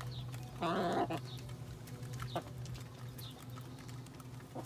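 Domestic hens calling as they feed, with one louder drawn-out call about a second in and short high chirps and small clicks scattered through.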